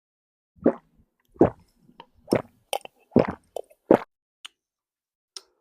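Close-up mouth sounds of sipping and swallowing a drink: about five short wet gulps in the first four seconds, then a few faint clicks.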